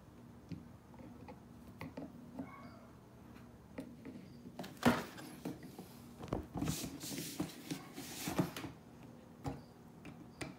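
Scattered clicks and knocks of pliers and a plastic O-Cedar spin-mop bucket being handled. There is one louder knock about five seconds in, then about two seconds of rubbing and scraping as the bucket is turned over.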